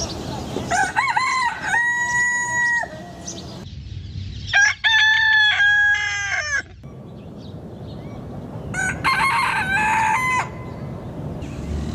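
Rooster crowing three times, a few seconds apart, each crow ending in a long held note.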